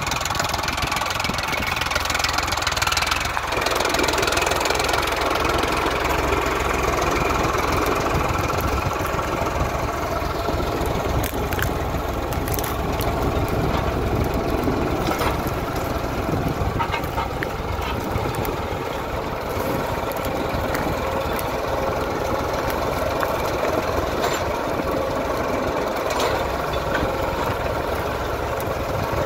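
Diesel tractor engine running steadily, a little louder and fuller from about three seconds in.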